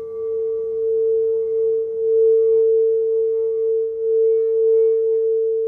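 Crystal singing bowl sounding one steady, sustained tone with faint higher overtones, its loudness swelling and ebbing in slow waves.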